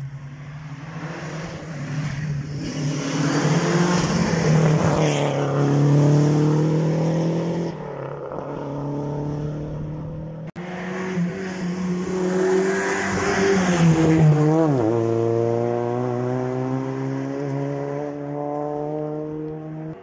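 Historic rally car engines at full throttle on a stage: the engine note climbs hard through the revs. After an abrupt cut about halfway, a second run climbs, drops sharply at a gear change, then climbs again.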